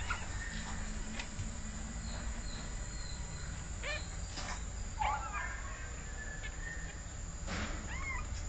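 Cat meowing: three short meows, about four seconds in, about five seconds in and near the end, against a steady low hum and some handling clicks.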